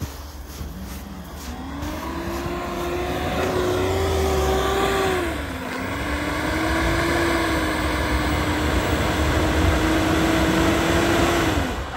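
Mitsubishi L200 Triton pickup's engine accelerating. Its pitch climbs over the first few seconds, dips briefly about halfway, then holds steady before cutting off suddenly near the end.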